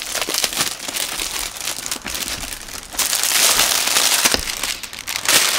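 Clear plastic bag crinkling and rustling as it is pulled off a hard plastic file case, louder for a second or so past the middle and again near the end.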